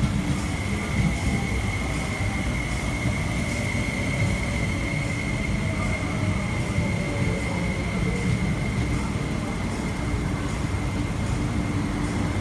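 MTR East Rail Line SP1900 electric multiple unit running along the platform and slowing: steady rumble of wheels on rail with a thin, steady high whine, and a fainter tone that slowly falls in pitch as it decelerates.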